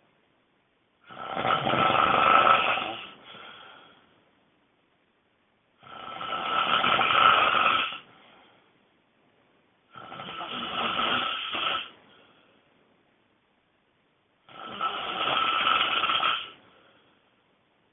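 A person snoring extremely loudly: four long snores of about two seconds each, one about every four and a half seconds, with pauses between.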